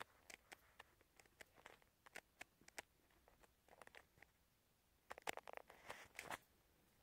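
Faint handling noise: scattered small clicks and rustles, with a louder stretch of rustling from about five to six and a half seconds in, as a plush toy and the phone are moved about on bedding.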